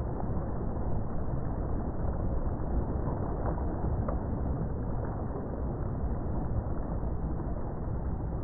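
Boat under way on open water: a steady low rush of engine and water noise.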